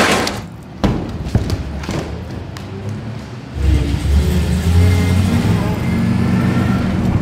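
A vehicle engine running, with a low steady rumble that comes in about halfway through, and indistinct voices in the background.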